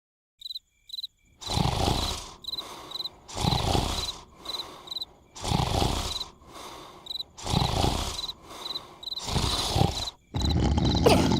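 Cartoon snoring: loud snores about every two seconds, each followed by a quieter breath out, over steadily chirping crickets. Near the end the snoring pattern breaks into a denser, steadier noise.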